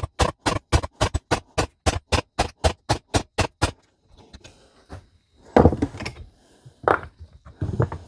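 Hammer striking a socket used as a drift against a U-joint bearing cap in a steel driveshaft yoke, a fast even run of metal blows about four a second, driving out the worn-out, seized cap. The hammering stops a little past halfway, followed by a few scattered knocks and rattles of the parts being handled.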